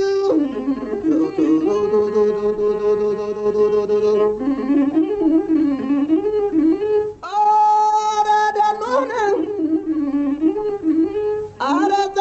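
Ethiopian fukera, a heroic chant, voiced in long held notes that bend and waver. It breaks off briefly about 7 seconds in and again near the end before new phrases start.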